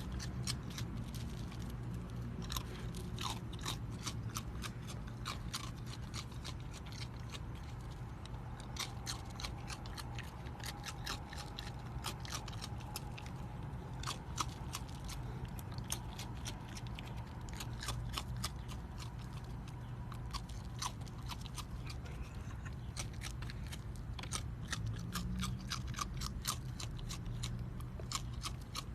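An animal chewing crunchy food: a long run of quick, irregular crunches and bites over a steady low hum.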